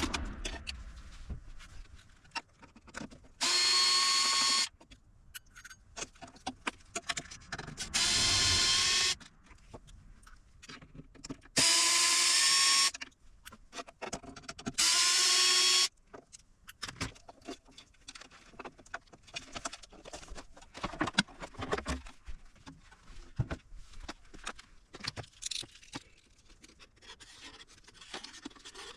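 Electric screwdriver running in four short spells of about a second each, driving out screws, with small clicks and handling noises of screws and parts between the spells.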